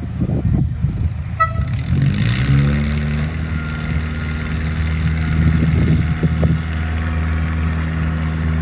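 An engine starts up: its note rises over about a second and then runs steadily, with a hiss above it. A very brief toot comes just before it.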